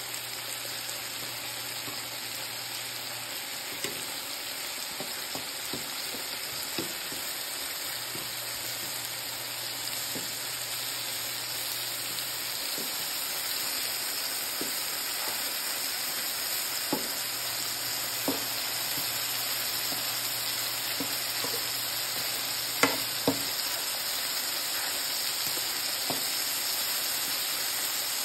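King oyster mushroom slices sizzling steadily in oil in a nonstick frying pan, with a fork clicking against the pan now and then as they are turned. Two louder knocks come close together about four-fifths of the way through.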